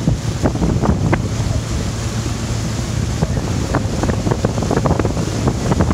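Wind buffeting the microphone over the low running of a boat on open water, with many short, sharp water slaps and splashes, busier in the second half.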